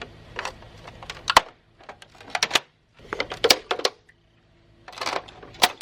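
Hard clicks and clatter of a monitor's plastic and metal parts being handled and taken apart, in irregular clusters with short pauses between them.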